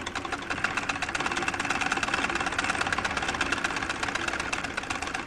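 Sewing machine running at speed: a rapid, even mechanical clatter, many beats a second, held steady.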